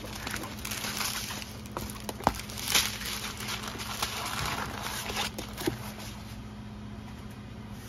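Crinkling of the thin plastic bags of diamond-painting drills and rustling of a paper sheet being handled, with a few small sharp clicks. It grows quieter over the last couple of seconds.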